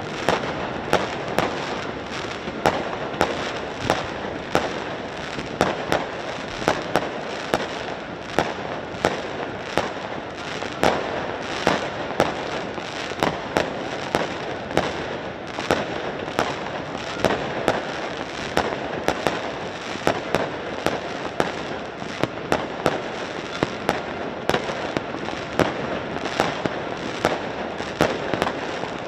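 Fireworks and firecrackers going off all over a city: a dense, unbroken din of bangs, with louder reports standing out about once or twice a second.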